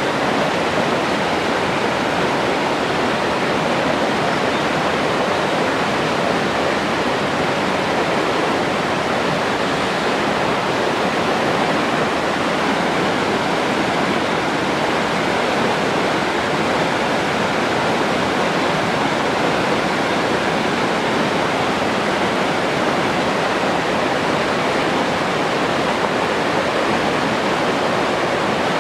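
Forest stream flowing: a steady rushing of water.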